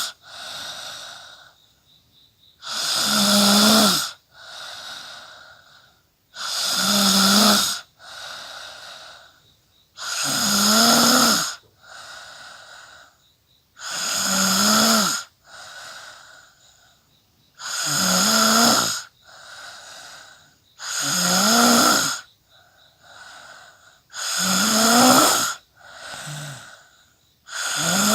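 A person snoring in slow, even cycles: a loud, buzzing snore about every three and a half to four seconds, each followed by a softer breath.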